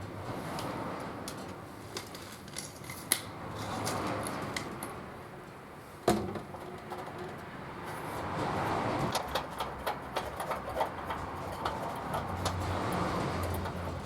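Small tin-plate toy parts being handled and worked: scattered light clicks and metallic taps over soft rustling, with two sharper knocks, one about three seconds in and a louder one about six seconds in, and a quick run of taps a little later.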